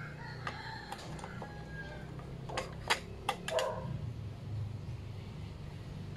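Light handling of a motorcycle's license plate: a few sharp taps and clicks about two and a half to three and a half seconds in, over a steady low hum.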